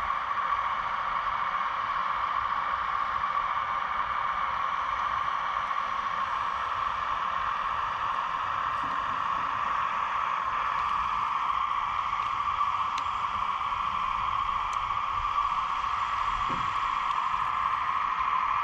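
Steady whine of a 1:15-scale RC Kubota U17 mini excavator's hydraulic pump as the machine drives up onto a truck's flatbed and moves its arm, with a faint knock a couple of seconds before the end.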